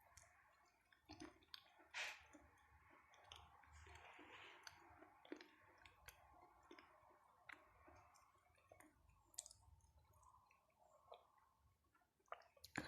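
Near silence with faint, scattered clicks of quiet chewing, the loudest about two seconds in.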